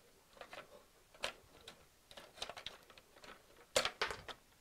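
Wires being tucked into a plastic electrical project box as its faceplate is lowered onto it: scattered small clicks, taps and rustles of plastic and wire, with a sharper knock near the end.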